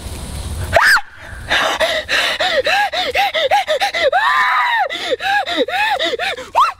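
A man's voice making a rapid run of short, strained cries, each rising and falling in pitch, about five a second, with one longer, higher cry in the middle.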